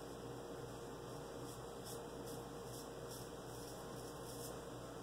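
An 1830s George & Sons 7/8 straight razor scraping through lathered stubble under the jaw in several short, faint, scratchy strokes: the audible feedback of the blade cutting whiskers. A steady electrical hum runs underneath.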